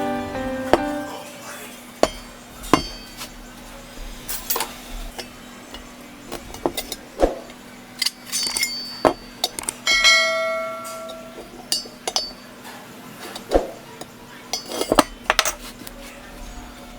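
Steel square tubing being knocked and set down: irregular metal clinks and taps, one strike about ten seconds in ringing on for about a second. A steady low hum runs underneath.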